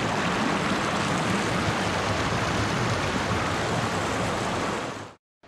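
Steady rush of running creek water, an even hiss with no breaks, that cuts off suddenly near the end.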